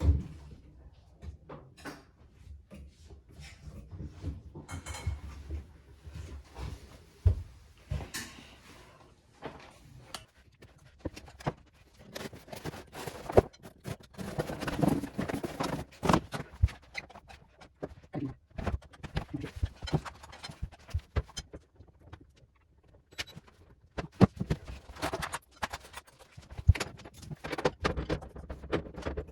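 Hands working on a front-loading washing machine's door seal: irregular clicks, knocks and scraping, with a sharp knock at the very start.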